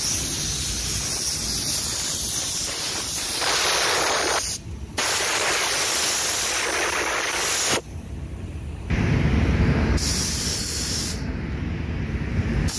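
Automotive paint spray gun hissing as it sprays clear coat onto the underside of a car bonnet. The trigger is let go briefly about four and a half seconds in, and again for about a second near the eight-second mark.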